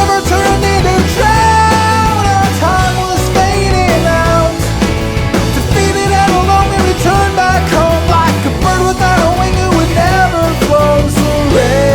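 Background music: a rock-style song in a stretch without lyrics, a melodic lead line over a steady beat.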